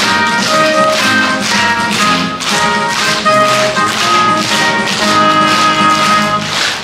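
Instrumental music with held melody notes over a steady tapping beat, stopping just before the end.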